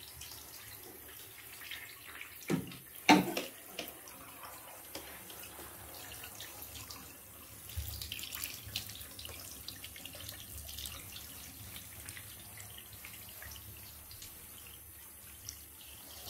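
Water from a handheld shower head running over a cat's fur and into a bathtub, a steady hiss. About two and a half and three seconds in come two loud knocks, the second louder.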